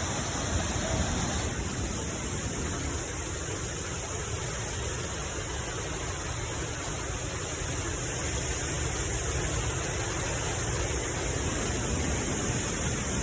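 Steady rushing roar of a waterfall, a dense hiss that brightens abruptly about a second and a half in.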